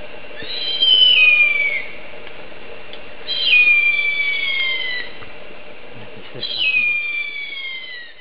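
Harpy eagle calling: three long, high, whistled screams, each sliding down in pitch, about three seconds apart, over a steady faint hum.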